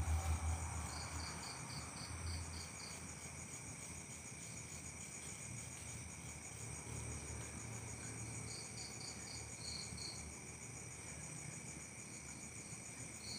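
Night insect chorus: crickets and other insects trilling steadily at several pitches, with one cricket chirping in short runs of rapid pulses a few times. A low rumble sits under it for the first two seconds or so.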